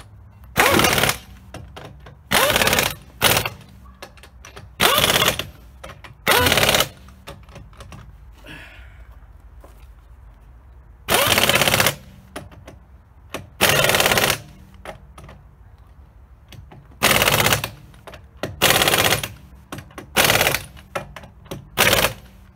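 Pneumatic impact wrench with a 20 mm socket hammering wheel lug nuts tight in about ten short bursts, each under a second, with pauses between as it moves from nut to nut in a star pattern.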